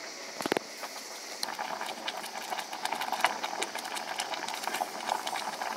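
A single knock about half a second in, then a steady crackling hiss of food cooking in a pan over the fire, setting in after about a second and a half.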